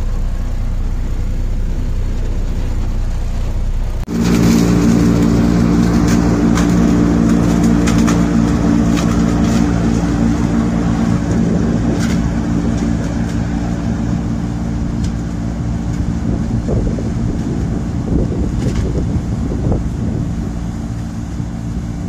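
Low vehicle rumble from inside a truck cab, then, after a sudden cut about four seconds in, a John Deere combine running steadily while harvesting corn: a loud engine and threshing drone with scattered sharp ticks, easing slowly as the combine pulls away.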